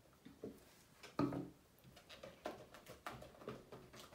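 Spoons stirring thick slime in glass bowls: faint scraping and light taps against the glass. There is one louder short sound about a second in, and a few soft knocks near the end.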